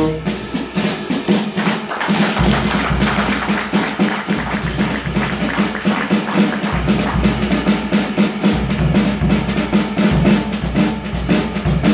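Jazz drum kit played with sticks as a solo: a busy run of snare and tom strokes over bass drum, with cymbals.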